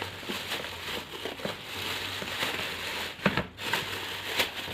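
Plastic bag crinkling and rustling as it is handled and wrapped around a lump of slime, with irregular small crackles and a louder rustle about three seconds in.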